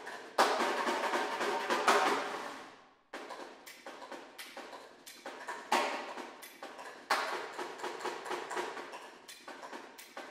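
Snare drum played solo: a loud, dense run of rapid strokes that tapers and is stopped short about three seconds in, then sparser, quieter strokes with sharp accents a little before the middle and again soon after.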